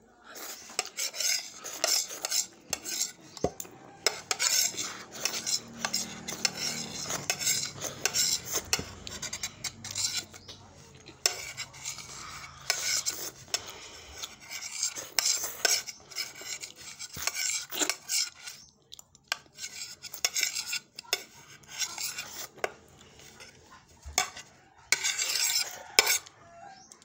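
A spoon scraping and clinking against a dish again and again as dinuguan (pork blood stew) is scooped up and eaten, close to a phone's microphone.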